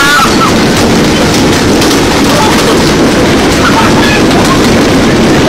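Loud, steady roar of violent storm wind and driving rain, with faint voices a couple of times behind it.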